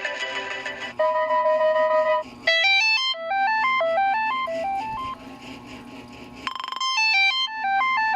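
Lenovo A318 phone ringtones playing: one electronic tune ends on a held chord about two seconds in, and after a short gap a new melody of quick, stepped beeping notes begins, with a brief dense chord near the end.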